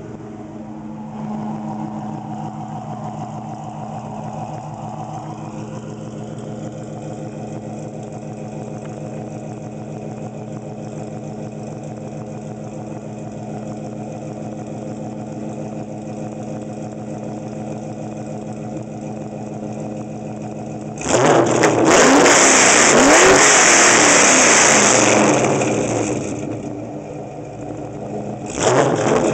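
2004 Pontiac GTO's LS1 5.7-litre V8 idling steadily through Stainless Works long-tube headers, catless mid pipes and an SLP Loudmouth exhaust, heard at the twin tailpipes. About 21 seconds in it is suddenly revved hard and held for about four seconds, then drops back, and it is revved again near the end.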